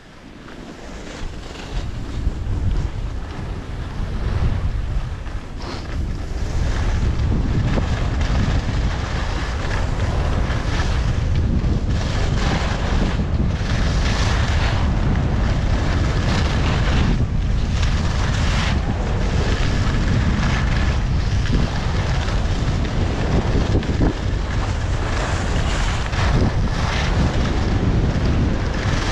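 Wind buffeting the microphone of a body-worn camera on a skier heading downhill, building over the first few seconds as speed picks up and then staying loud. Over it, the hiss of skis scraping across packed snow swells and fades with each turn.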